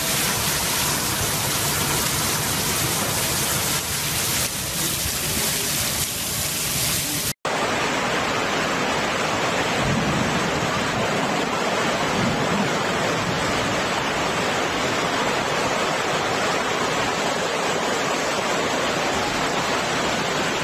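Heavy rain pouring down on a street with a steady hiss. About seven seconds in it cuts to fast muddy floodwater rushing down a street, a steady loud rushing of water.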